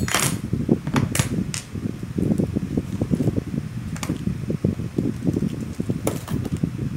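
A steady low rumble with about six sharp clicks and taps over it, the loudest right at the start, as a small output transformer's steel core, metal mounting brackets and lead wires are handled on a workbench.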